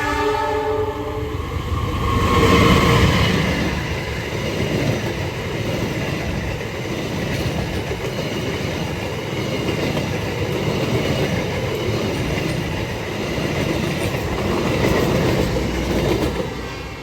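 Argo Wilis express passenger train's horn sounding for about the first second. Then the train passes close by, its locomotive and carriages rumbling and clattering over the rail joints, loudest as it comes level about two to three seconds in, and fading away near the end.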